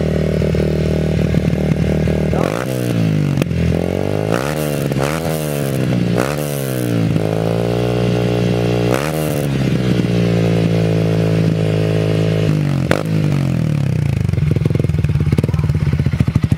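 Yamaha MX King 150's single-cylinder four-stroke engine running through a plain Akrapovic-style slip-on racing exhaust. It idles, then is revved in a series of quick blips that rise and fall, one held a little longer in the middle, and settles back to a pulsing idle near the end.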